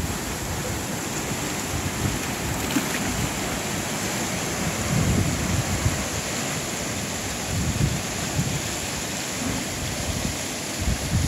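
Ocean surf breaking and washing over black lava rock, a steady rush of water and foam that swells every few seconds. Wind buffets the microphone in low gusts.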